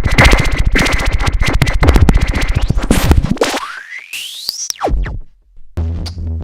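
Electronic synth sound from a Eurorack module: a dense run of rapid glitchy clicks, then a tone sweeping steadily upward in pitch, a quick downward sweep and a brief drop-out, and a low bass pulse with percussive hits coming back near the end.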